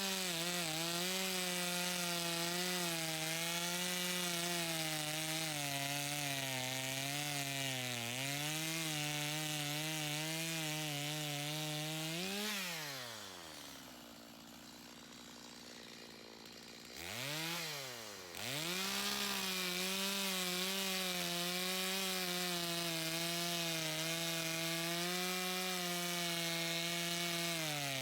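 Chainsaw running under load as it cuts through a log, its pitch wavering with the cut. About halfway it revs up, drops to a low idle for a few seconds, revs briefly again and goes back to cutting steadily.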